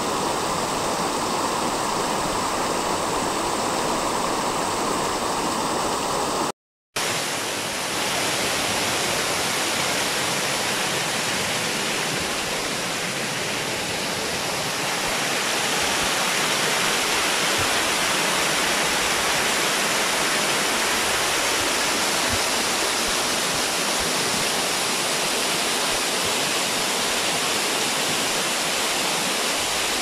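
Small waterfall spilling over mossy rock: a steady rush of falling water. It drops out for a moment about seven seconds in, then carries on.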